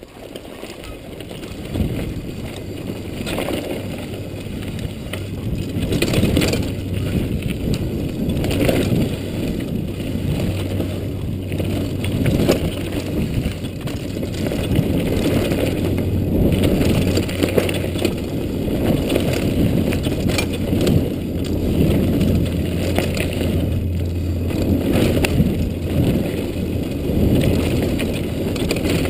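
Mountain bike riding fast down a dirt singletrack, heard from a chest-mounted GoPro: a continuous muffled rumble of tyres on dirt, broken by frequent sharp clatters and knocks from the bike over bumps.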